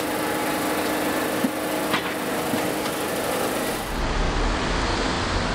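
Carris tram standing at the stop with a steady mechanical hum and two short clicks near the middle; about four seconds in, the sound changes abruptly to a low rumble as the tram moves past.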